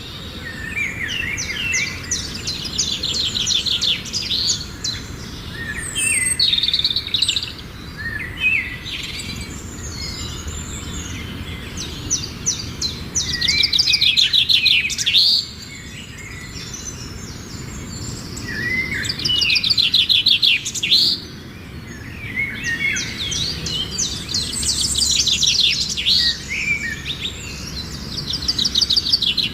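Birds chirping and calling, with loud bursts of rapid repeated high notes and short sweeping notes that come back every few seconds.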